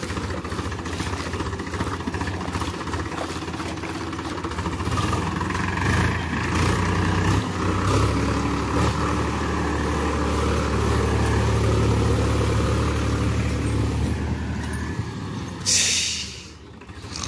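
Powertrac Euro 50 tractor's diesel engine working hard under load as it pulls out of a muddy field up a bank onto a road, growing louder from about six seconds in and easing off near the end. A brief hiss near the end.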